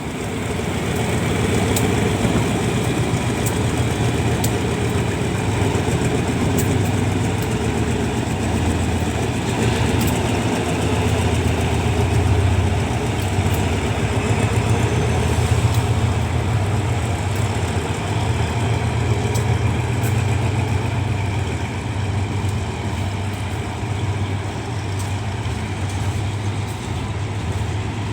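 Diesel locomotive engine running steadily close by, a deep drone that swells up right at the start and holds.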